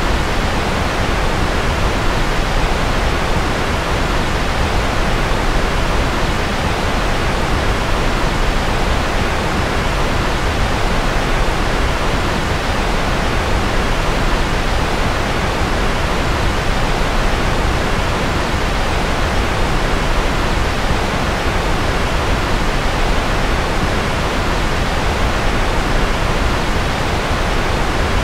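Steady sleep-aid white noise: an even, unchanging hiss, deeper and softer at the top than a pure hiss.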